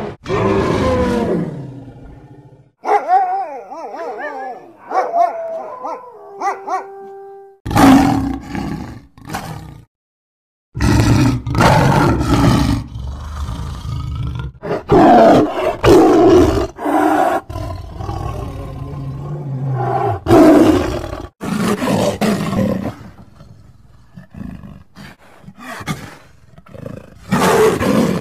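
Wild-animal sound effects in sequence: a trumpet call fading out at the start, then a few seconds of high gliding calls. After that comes a long series of big-cat roars and growls, lion-like, broken once by a short silence.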